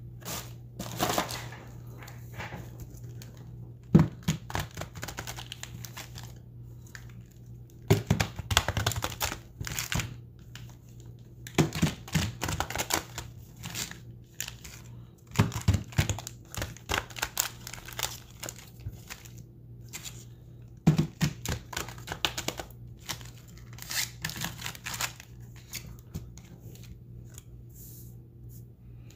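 Foil Magic: The Gathering Mystery Booster packs crinkling as they are handled and dealt by hand into piles on a playmat. The crinkling comes in bursts every few seconds, several of them starting with a soft thump as a stack of packs is set down.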